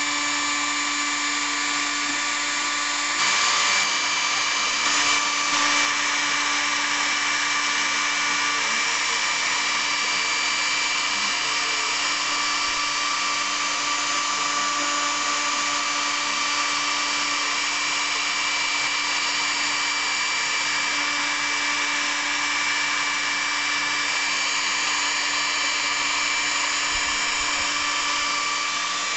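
Spindle of a home-built CNC router running steadily while its bit mills a pocket into a wooden board: an even motor whine with cutting noise, briefly a little louder about three seconds in.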